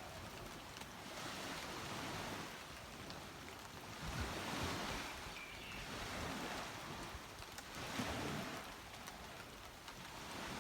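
Small waves breaking and washing up a beach, swelling and fading in surges about every two seconds.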